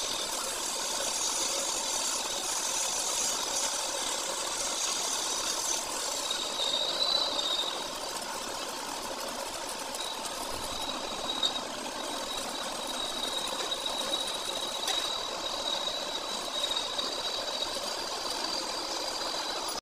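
Stick (shielded metal arc) welding on a steel chain roller: the electrode arc crackles steadily, with a thin high tone running through it.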